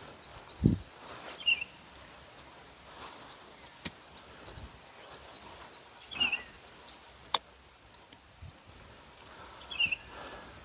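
Birds calling in trees: rapid, high, down-slurred chirps keep going throughout, and a lower call comes back about every four seconds. Two sharp clicks stand out, about four and seven and a half seconds in.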